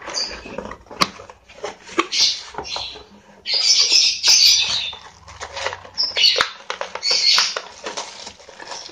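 A cardboard headphone box opened by hand, the lid lifted off, then the thin clear plastic bag wrapped around the headphones crinkling as it is handled, in several rough bursts, the loudest about four seconds in.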